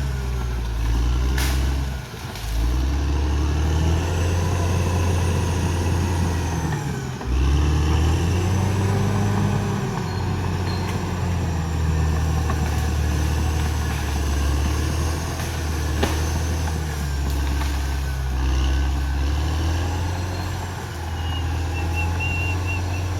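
Caterpillar D6R XL bulldozer's diesel engine running under load, its revs dipping and recovering a couple of times, with a faint high whine rising and falling above it and an occasional sharp clank.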